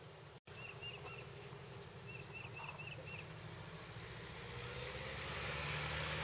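Distant single-engine propeller plane, a Vans RV-6A, running at takeoff power and growing steadily louder as it rolls toward the listener. A few short high chirps come in two small groups in the first half, and the sound cuts out for a split second near the start.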